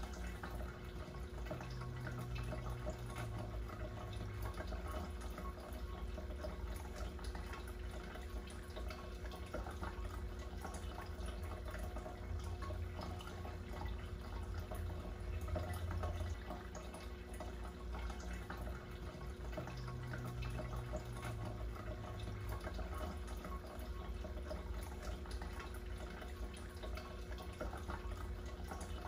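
A background bed of dripping, trickling water with many small splashes, over a steady low hum that swells gently twice.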